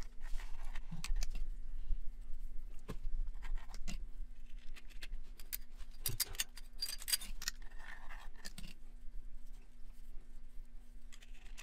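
Irregular light clicks, clinks and a couple of short scrapes of small metal parts being handled, as new clutch plates are fitted into a Kawasaki KLX110's clutch, over a steady low hum.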